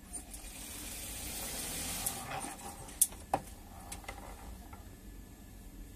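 Hand-cranked grinder's stone wheel spinning with a small thin piece held against it, giving a hissing grind that swells over the first two seconds. Two sharp clicks a little past the middle.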